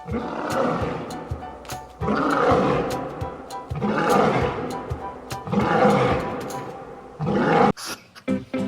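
A large wild animal roaring over background music: about five long roars, spaced a little under two seconds apart, ending shortly before the close.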